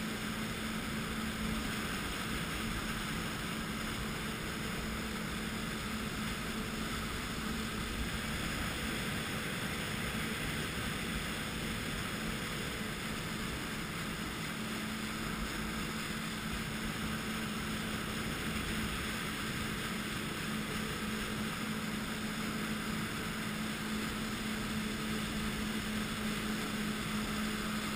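A jet ski's engine runs at a steady cruising speed, giving a constant hum, over an even rush of water and wind.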